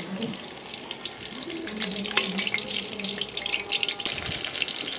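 Gram-flour-battered green chillies (mirchi bajji) deep-frying in hot oil, a steady bubbling sizzle thick with fine crackles.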